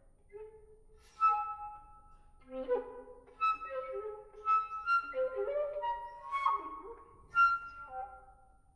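Contemporary chamber music for flutes, strings and accordion. The flutes play sharply attacked, breathy notes, some held and overlapping, over lower sustained notes. The playing enters about a second in after a near-quiet pause and dies away near the end.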